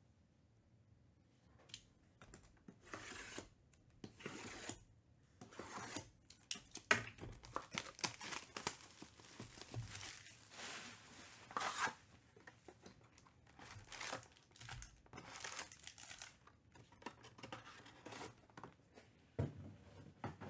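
Shrink-wrap being torn off Panini Prizm baseball card boxes and the boxes opened, with the crinkle of foil card packs as they are pulled out. Irregular tearing and rustling starts about two seconds in and keeps on in uneven bursts.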